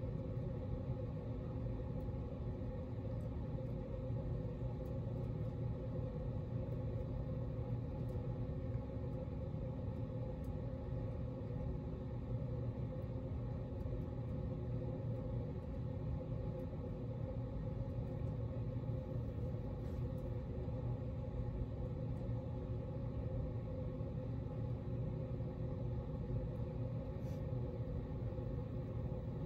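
Hunter baseball-themed ceiling fan running steadily: a low, even hum with the rush of air from its blades.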